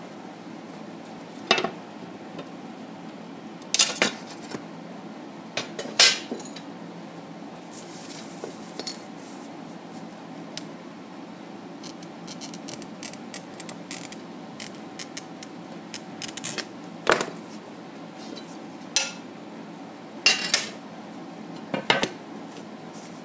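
Sheet glass clinking and knocking sharply on the work table as it is handled, a handful of times, with a glass cutter scratching as it scores the glass.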